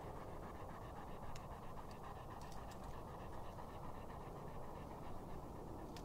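A golden retriever panting steadily with its mouth open and tongue out.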